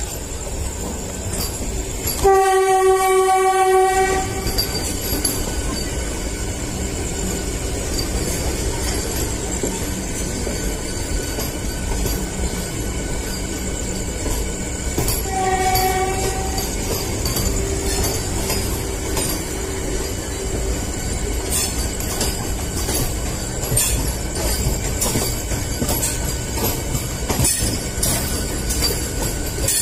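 Indian Railways express train passing close by: a steady rumble of coaches rolling on the rails, with wheel clicks over the rail joints in the later part. A train horn blows loudly for about two seconds near the start, and again more briefly about halfway through.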